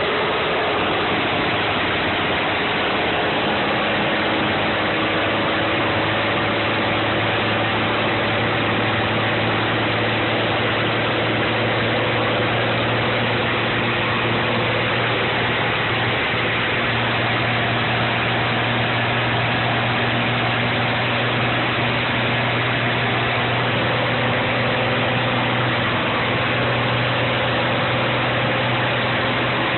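M35A2 deuce-and-a-half army truck's turbocharged multifuel inline-six diesel running steadily at an even engine speed, a low drone with little change in pitch.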